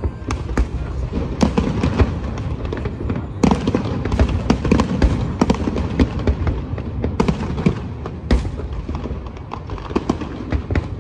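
Aerial fireworks shells bursting over the harbour: many sharp bangs in quick succession over a continuous low rumble, with several louder reports about three and a half, four and a half, seven and eight and a half seconds in.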